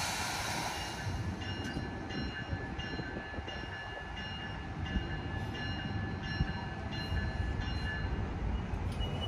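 NJ Transit train of an ALP-46A electric locomotive and Comet coaches running with a steady low rumble. A burst of hiss comes at the start, and thin high squealing tones come and go over it.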